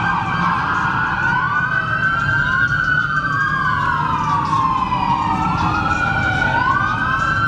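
Several police car sirens wailing at once, their slow rising and falling tones overlapping out of step, over a low rumble.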